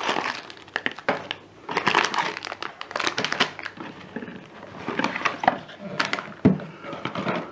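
Plastic and paper packaging crinkling and rustling in irregular bursts as items are handled and lifted out of a box.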